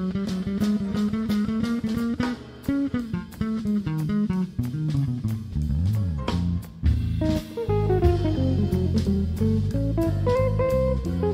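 Instrumental jazz played live: an electric bass runs a busy line of quick low notes over drum kit. About two-thirds of the way through, higher melodic notes come in and step downward.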